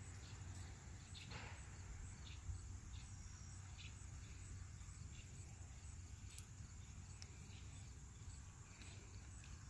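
Near-quiet background with a steady low hum and faint insect chirping. A few faint soft clicks and ticks come from hand work as anti-seize is spread on the outboard's propeller shaft.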